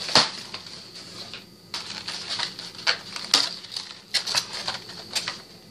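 Trading card deck packaging being opened and handled: irregular crinkling, tapping and clicking of cardboard and plastic.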